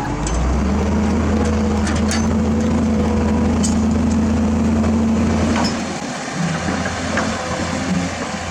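A heavy engine running steadily, louder for about five seconds and then easing off, with scattered light clicks.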